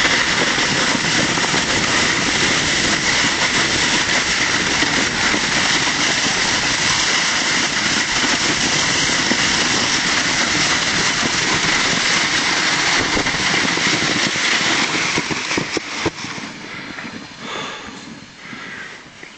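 Plastic slide-bob sliding fast over packed snow, a loud steady rushing scrape. About three-quarters of the way in it slows and the noise falls away, leaving a few short scrapes.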